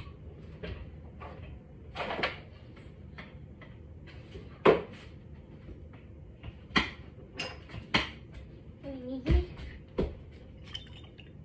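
Scattered knocks and clunks of kitchen cupboard doors and hot-sauce bottles being handled, a dozen or so separate short impacts.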